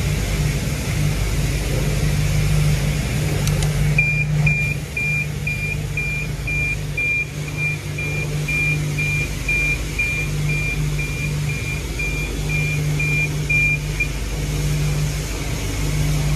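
A steady low machine hum, with a high electronic beep repeating about twice a second for about ten seconds, starting about four seconds in.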